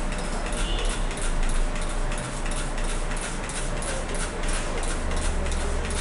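Hand trigger spray bottle pumped again and again in quick succession, each pull a short hiss of mist, about two or three a second, wetting freshly sown seed-starting soil.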